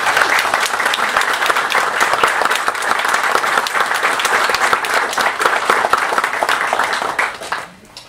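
Audience applauding: dense, steady clapping that fades out near the end.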